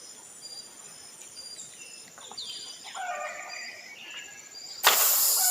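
Birds chirping over a steady high-pitched insect drone, with a louder, more complex call about three seconds in. Near the end a sudden loud burst of noise cuts in and lasts about a second.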